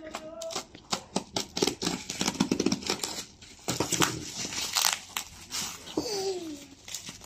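Bubble wrap on a parcel being cut with a utility knife and pulled and torn by hand: a dense run of crinkling, crackling plastic.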